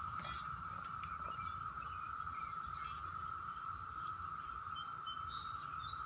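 Outdoor ambience: a steady, even high-pitched drone with a low background rumble and a few faint bird chirps.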